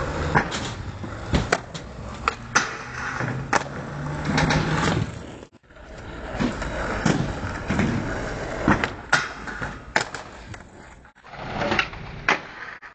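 Skateboard wheels rolling on rough asphalt, with a series of sharp clacks from the board popping and landing. The sound breaks off briefly twice.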